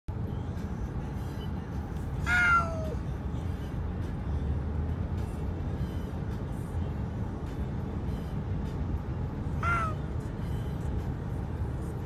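Oriental shorthair cat giving two honking meows, a longer, louder one about two seconds in and a short one near the end, each dipping slightly in pitch, over the steady low rumble of road noise inside a moving car.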